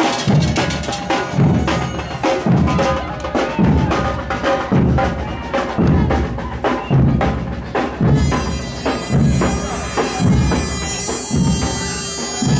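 Street drum band of samba-style surdo bass drums and snare drums playing a steady marching beat, about one and a half bass thumps a second. About eight seconds in, a sustained high reedy tone with a low drone joins over the drums.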